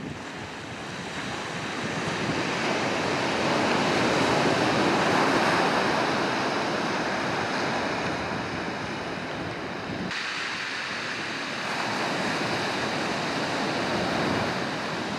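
Surf breaking and washing up the beach in a steady rush that swells about four seconds in and again near the end, with some wind buffeting the microphone. The low rumble drops away abruptly about ten seconds in.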